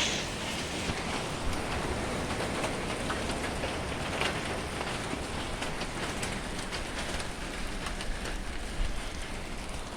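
Hailstorm: a steady hiss of falling rain and hail with scattered sharp ticks of hailstones striking.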